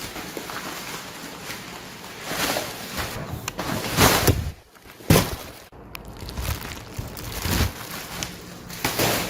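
Cardboard box and packaging of a robot vacuum being handled during unboxing: a series of short rustling and scraping bursts, the loudest about four and five seconds in.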